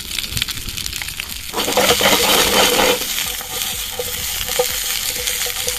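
Corn rounds frying in oil in a frying pan, sizzling with small crackles as they are turned. About a second and a half in, the sizzling swells louder for about a second and a half, then settles back to a steady sizzle.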